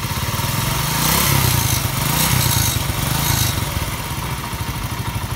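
Freshly rebuilt single-cylinder four-stroke engine of a 70cc Unique CD 70-type motorcycle, running and revved by hand on the throttle. The revs rise and fall back about three times over a steady engine beat.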